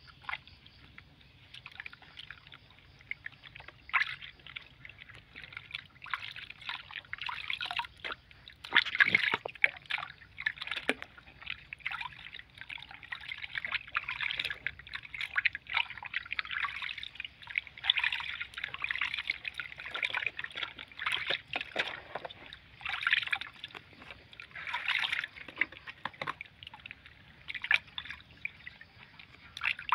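Water trickling and splashing in irregular bursts as a kitten is washed by hand.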